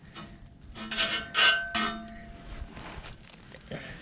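Metal knocking and scraping as a truck starter and its bolts are worked into place: a few sharp clanks about a second in, each leaving a short metallic ring, then fainter rubbing.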